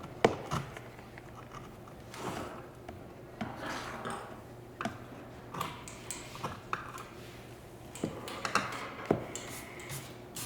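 Irregular taps, clicks and short scrapes of hand tools on a hard work surface as printing ink is mixed, over a steady low hum. The sharpest knock comes just after the start.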